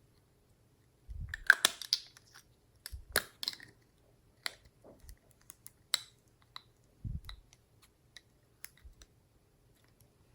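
Glossy slime being worked by hand, with irregular sticky clicks and small crackling pops, most crowded in the first few seconds, and a few soft low thumps.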